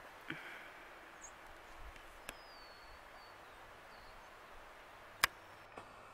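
Quiet outdoor ambience: a steady faint hiss with a few sharp ticks, the loudest about five seconds in, and a faint high, thin bird call that slides slightly down in pitch.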